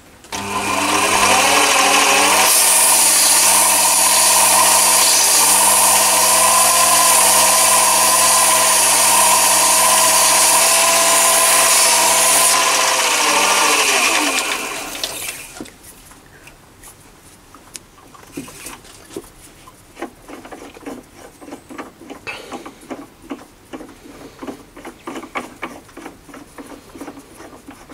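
Chinese mini lathe motor spinning up with a rising whine and running steadily while emery cloth hisses against the spinning ball for about ten seconds to polish it. The hiss stops sharply, and the lathe then winds down with a falling whine, followed by light clicks and handling.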